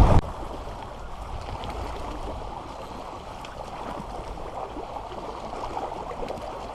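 Wind buffeting the microphone stops suddenly just after the start, leaving a steady low wash of water lapping with a few faint ticks.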